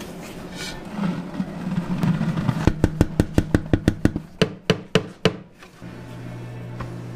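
Commercial spiral dough mixer running with a steady machine hum, with a quick run of sharp clicks or knocks, about four a second, through the middle; near the end the hum drops to a lower pitch.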